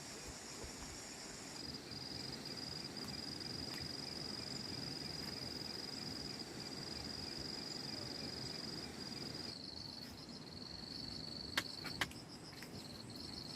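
Insects trilling in steady high, finely pulsed tones, the trill changing pitch about a second and a half in and again near ten seconds. Two sharp clicks come about twelve seconds in.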